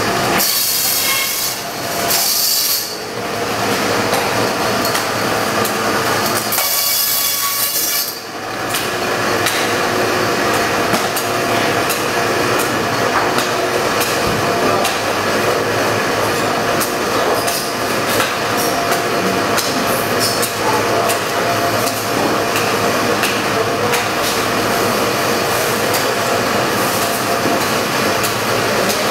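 Band saw cutting a frozen tuna: steady machine noise with three shrill screeches in the first eight seconds as the blade goes through the frozen fish, then continued running noise with scattered knocks and clatter.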